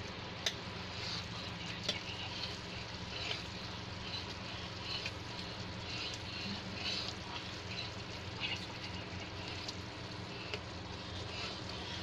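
Thick sugar syrup boiling and crackling in a kadhai while a steel spoon stirs it. The syrup is near three-thread consistency. There are two sharp clicks, about half a second and two seconds in.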